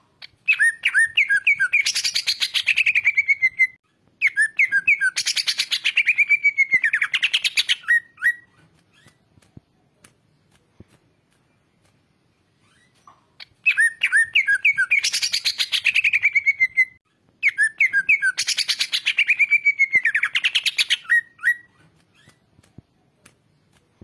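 Caged male leafbird (cucak ijo) singing four loud phrases in two pairs, with a pause of about five seconds between the pairs. Each phrase opens with a few quick chirping notes and runs into a fast, dense trill that falls in pitch.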